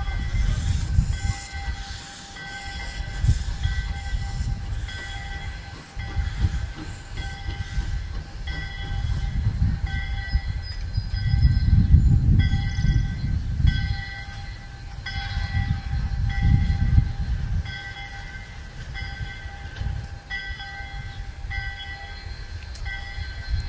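A train rolling along the track with a bell ringing steadily in evenly spaced strikes throughout. A low rumble swells and fades beneath it, loudest about halfway through.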